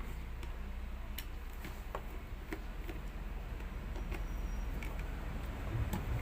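Scattered light clicks and ticks of a screwdriver working the screws out of an electric drill's housing, irregularly spaced, over a steady low hum.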